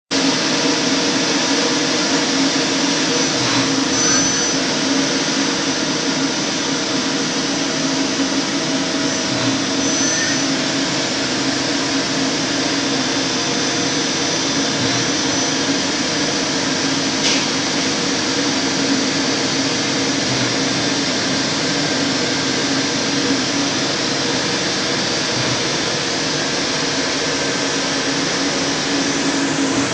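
FTC30 CNC lathe running: a steady whirring noise with a constant hum underneath. Two short high squeals come about four and about ten seconds in, and a sharp click about seventeen seconds in.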